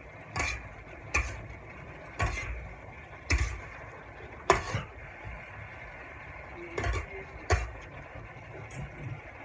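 Metal spatula scraping and clanking against a metal wok while stir-frying long beans and pork, about eight strokes at uneven intervals over a steady hiss.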